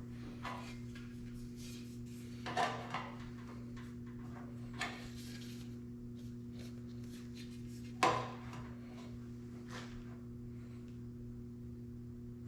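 Hand-formed sheet-steel patch panel being handled and set against a car fender: a few scattered light knocks and rustles, the sharpest about 8 seconds in, over a steady low hum.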